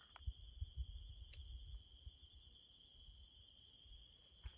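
Faint, steady high-pitched chirring of crickets, heard as two unbroken high tones, with some low rumbling noise in the first two seconds.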